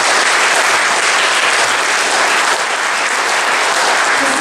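Audience applauding: steady, dense clapping from a crowd.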